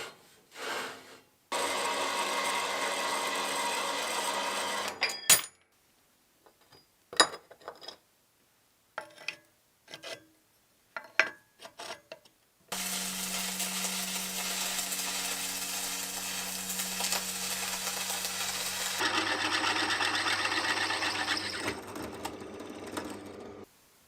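A handheld power tool working wood, running steadily for several seconds at a time in separate stretches, with scattered knocks and clicks between the runs.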